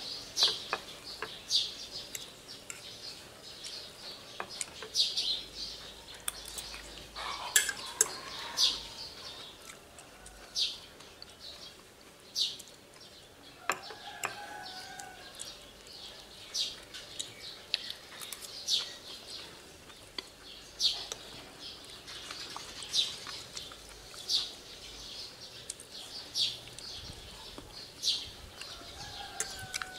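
Fork clinking and scraping on a ceramic plate while eating, in short sharp ticks every second or two, with birds chirping faintly in the background.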